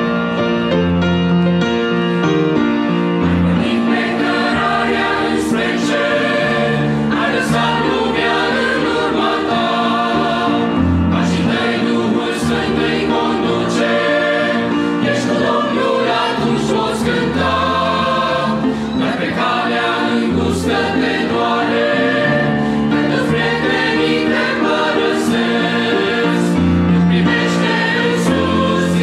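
Mixed choir of men's and women's voices singing a hymn in Romanian, with piano accompaniment.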